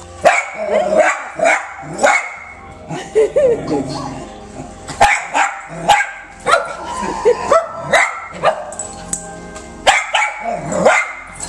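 Small puppy barking over and over in short, sharp barks, about one or two a second, at a toy mouse.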